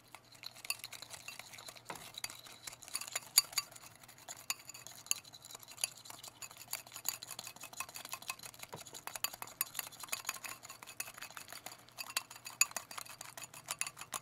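Small wire hand whisk beating a creamy mix in a glass bowl: a quick, continuous clicking and rattling of the wires against the glass as the mix is whipped.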